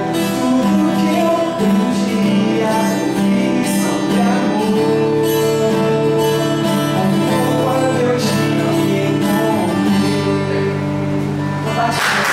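A man sings a song into a handheld microphone over guitar accompaniment, holding long notes. Applause breaks out right at the end as the song finishes.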